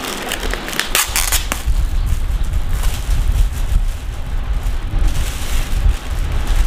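Foil gift wrapping crinkling and tearing as a box is unwrapped, loudest in the first second and a half, over a steady low rumble.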